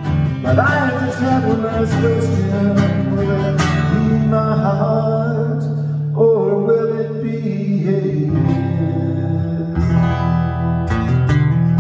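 A man singing over a strummed acoustic guitar, holding long notes that bend in pitch.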